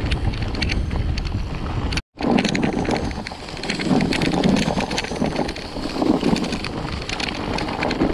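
Bird Zero AM hardtail mountain bike rolling fast over a rough dirt and stone track: tyre rumble with rattles and clicks from the loaded bike, and wind on the microphone. The sound breaks off for a moment about two seconds in.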